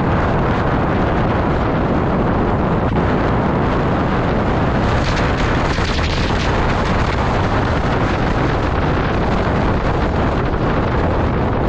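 Heavy wind buffeting the microphone of a camera on a bicycle riding fast downhill, a loud steady noise with no break.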